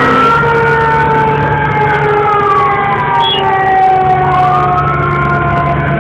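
Fire engine siren wailing, its pitch rising and falling every couple of seconds, over a second siren tone that slowly falls in pitch, with the truck's engine running underneath.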